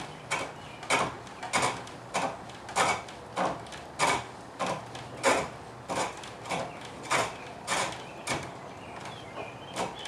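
Turning tool cutting a wooden blank on a homemade cord-driven wooden lathe: a rhythmic scrape about every 0.6 s, each cut followed by a quieter pause as the work goes round.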